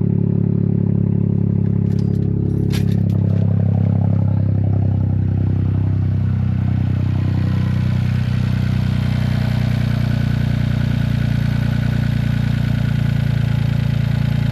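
Toyota GR Corolla's turbocharged 1.6-litre three-cylinder engine idling steadily just after start-up, breathing through a freshly fitted Eventuri carbon-fibre cold air intake. A few sharp clicks and a rattle come about three seconds in.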